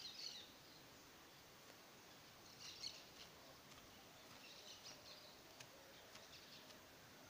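Faint short bird chirps, a few separate bursts over a quiet outdoor background.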